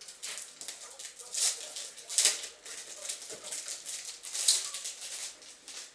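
Crinkly plastic gift wrapping rustling and crackling as it is handled and pulled open, in uneven bursts, the loudest about two seconds in and again later on.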